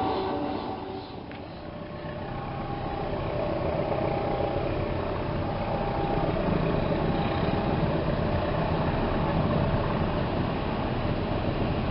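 A diesel locomotive's horn cuts off in the first half second, then the rumble of a train running on the rails builds up and carries on steadily and loud.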